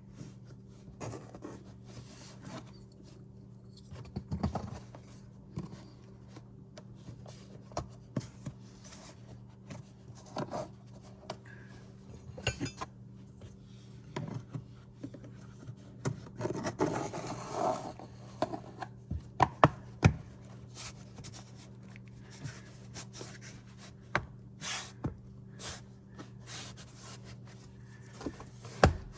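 Hand work on the car: scattered clicks, knocks and rubbing of parts and tools, with a stretch of scraping about halfway and a few sharper knocks later, over a steady low hum.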